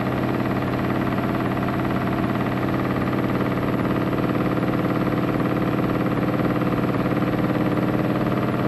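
Il-2 attack aircraft's Mikulin AM-38 liquid-cooled V12 engine running steadily at warm-up revs of about 1200 rpm with the propeller on fine pitch.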